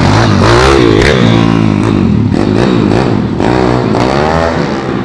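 Small pit bike's single-cylinder engine revving: the throttle is blipped repeatedly, so the engine note rises and falls four or five times before easing off near the end.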